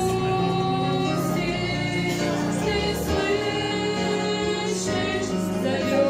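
Slow hymn music on an electronic keyboard, long held chords with a choir-like sound changing every second or two.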